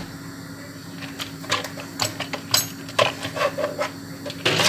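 Irregular clicks and light knocks of a blender's plastic base and small parts being handled as it is taken apart, over a steady low hum. A louder clatter comes near the end.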